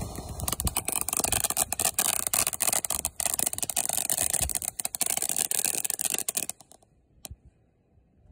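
Ground fountain firework spraying sparks with a dense crackling hiss, which dies away about six and a half seconds in, followed by one sharp crack a moment later.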